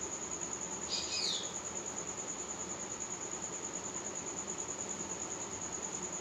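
A cricket trilling steadily, an even, fast-pulsing high tone, over faint room hiss, with a brief high falling squeak about a second in.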